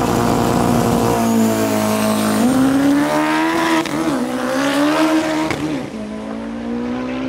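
Turbocharged 4G63 four-cylinder of a 1600 hp Nissan Pulsar GTI-R drag car running hard: the engine holds a steady pitch for about two seconds, then its pitch climbs with a few brief dips as the car accelerates down the strip.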